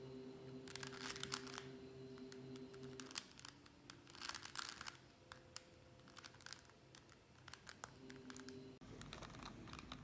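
Plastic 4x4 V-Cube puzzle cube being turned and handled: quick bursts of clicking and rattling about a second in and again around four seconds, with scattered single clicks between.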